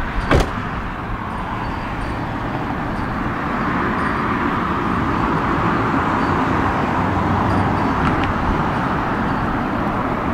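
A 2017 Kia Rio's trunk lid shutting with one sharp thump near the start, followed by steady outdoor traffic noise that swells and eases off.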